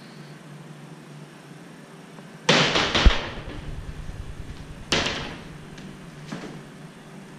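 Wooden wardrobe doors being swung shut: a swish ending in a heavy thump about two and a half seconds in, a second bang about five seconds in, and a lighter knock near the end.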